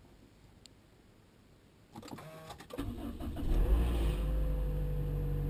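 Toyota Noah's engine being started: a few clicks and starter cranking from about two seconds in, the engine catching and flaring up just under four seconds in, then settling into a steady idle with a thin steady whine. The owner reports an abnormal noise from the engine at start-up.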